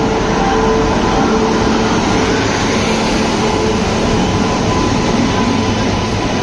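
Passenger train running on the rails: a loud, steady rumble with faint steady whining tones through it.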